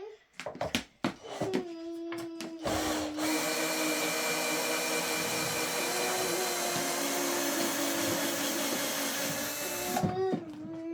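Steady whirring motor noise, like a vacuum cleaner or power tool running, starting about three seconds in and cutting off near the end, after a couple of seconds of short broken sounds.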